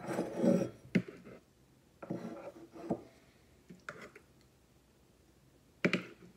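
Metal spoon scraping and clinking against a stoneware bowl as yogurt is served: a few sharp clinks spread a second or two apart, with short scraping passages near the start and about two seconds in.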